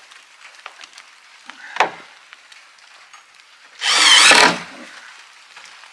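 Wooden gate being handled while it is hung: a few light knocks, a sharper knock about two seconds in, and a short, loud scraping rasp of wood about four seconds in.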